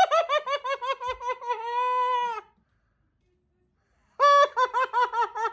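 High-pitched maniacal cackling laugh: a fast run of 'ha-ha-ha' pulses falling in pitch and ending on a long held note, then after a short silence a second run starting about four seconds in.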